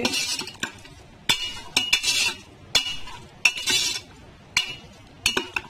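Spatula stirring chicken pieces in masala and scraping against the inside of a pressure cooker pot: about six separate scraping strokes, each with a clink against the pot.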